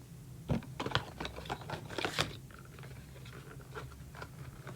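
Small plastic cosmetic packaging being handled and worked open at its inner seal: a run of small quick clicks and crinkles, thinning out after about two seconds.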